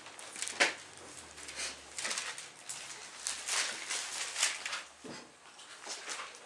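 Thin Bible pages rustling as they are leafed through to find a passage, in a series of short, irregular rustles.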